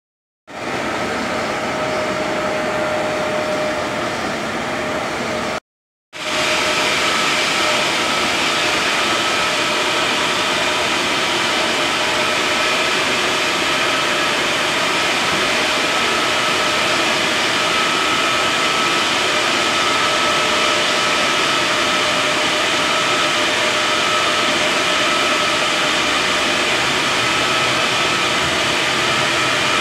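Large-format UV printer running, a steady whirring machine noise with faint high-pitched whines over it. It cuts out completely for about half a second some six seconds in.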